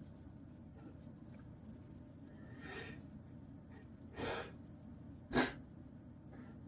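A man's short, sharp intakes of breath as a sneeze builds up: three of them, roughly a second or more apart, the last the shortest and loudest.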